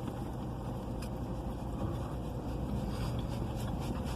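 Steady low rumble heard from inside a parked car's cabin.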